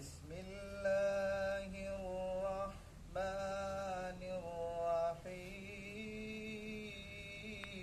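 A teenage boy reciting the Quran in the drawn-out melodic style of tilawat, holding long notes with slow pitch bends. Two phrases come in the first five seconds, then one long, lower note is held to the end.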